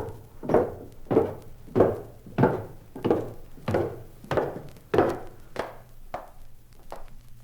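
Footsteps on a hard floor, a steady walking pace of about one and a half steps a second, growing fainter near the end as the walker moves away.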